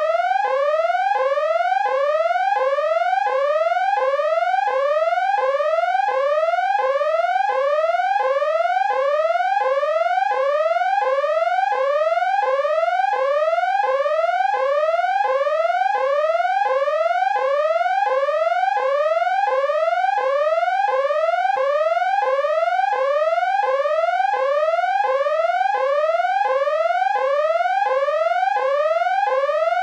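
Electronic danger alarm: a rising whoop tone that climbs in pitch over about half a second, then drops back and climbs again, repeated steadily without a break.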